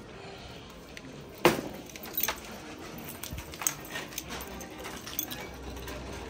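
Shopping cart with a plastic basket on a metal frame, pulled out of a row of nested carts with one sharp clank about a second and a half in, then rattling and clicking as it is pushed along.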